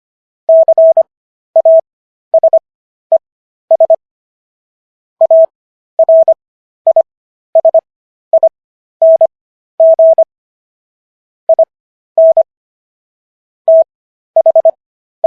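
Morse code sent as a single clean mid-pitched beeping tone, keyed in short dits and longer dahs spelling out the text of the US Constitution's Fifth Amendment. The characters are sent at 25 words per minute, with stretched Farnsworth gaps between letters and words bringing the overall speed down to 15 words per minute.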